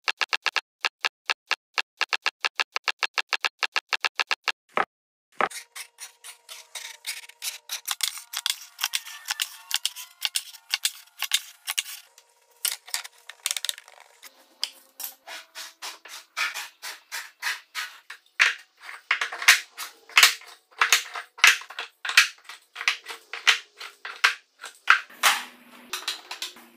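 Hardwood end-grain blocks and strips clicking and clacking against each other and the bench as they are set in place. The clicks come as a fast even run at first, stop for a moment about five seconds in, then return as quicker, uneven clatter.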